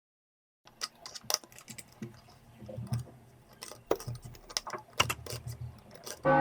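Irregular light clicks, taps and scratching from small 3D-printed PETG parts being handled and worked while they are cleaned with isopropanol. A ringing, chime-like tone begins just at the end.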